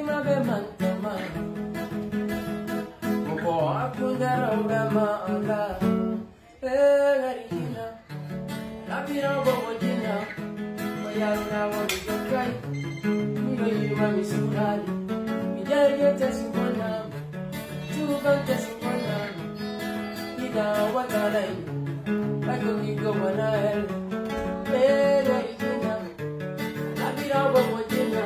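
Acoustic guitar played in a repeating chord pattern, with a voice singing over it. About six seconds in the guitar's low notes drop out for a moment while the voice carries on.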